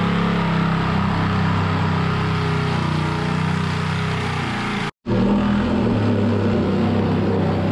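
Handheld electric jigsaw cutting through a plywood cabin wall panel, its motor and blade running steadily. The sound breaks off for an instant about five seconds in, then carries on the same.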